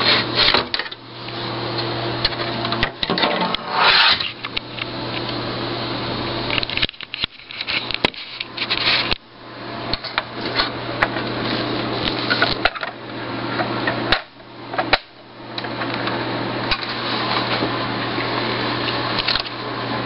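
Rubbing and scraping as the plastic and metal parts of a partly dismantled LCD monitor are handled, in irregular stretches broken by short pauses, over a steady low hum.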